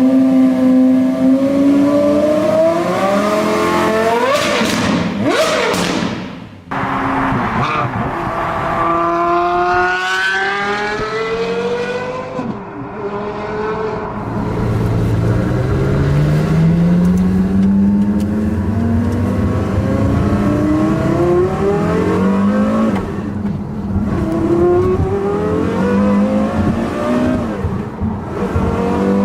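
Porsche Carrera GT's 5.7-litre V10 with a Repasi Motorwerks aftermarket exhaust, accelerating hard. Its pitch climbs several times, dropping back between climbs, with a brief break about six seconds in.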